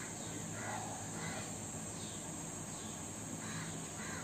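Birds calling in the background, short calls repeated every half second or so, over a steady low hum and hiss.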